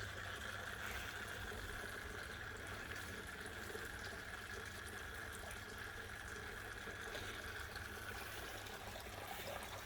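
Water trickling and splashing steadily in a small pump-fed backyard pond stream and waterfall, with a steady low hum underneath.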